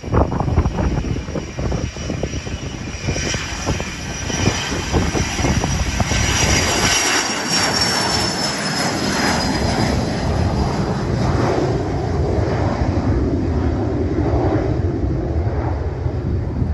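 Gulfstream G150 business jet's twin turbofan engines running at takeoff power during its takeoff roll: a loud, steady jet noise with a high whine that falls in pitch as the jet passes, about six to eight seconds in.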